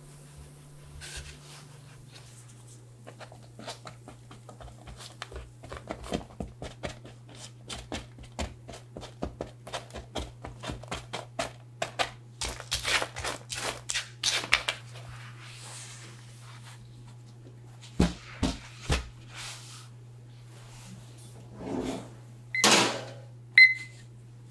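A spatula stirring and turning half-baked granola on a lined metal baking tray: a dense run of quick clicks and scrapes from the oat clusters, over a steady low hum. Three dull thumps come later, then a louder rustle and a short electronic beep from a kitchen timer near the end.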